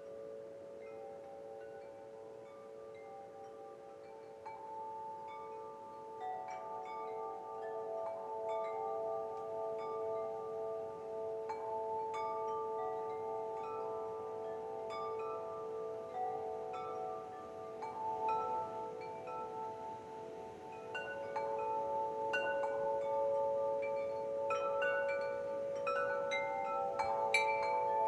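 Metal wind chimes ringing, many tones struck at random and overlapping in long sustained notes. The strikes grow busier and louder about a third of the way in and again near the end.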